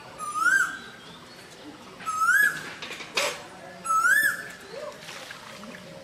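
Male Asian koel calling: three loud rising notes about 1.8 seconds apart, each climbing and briefly holding. A single sharp click falls between the second and third calls.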